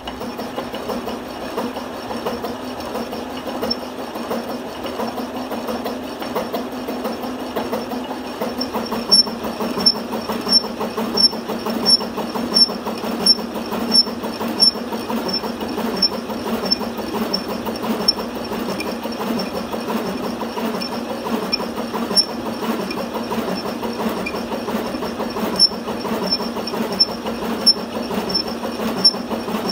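Metal lathe running with a thread tap in the chuck hobbing teeth into a free-turning metal gear blank: a steady machine hum with cutting noise. From about nine seconds in, a sharp tick repeats about every 0.7 seconds.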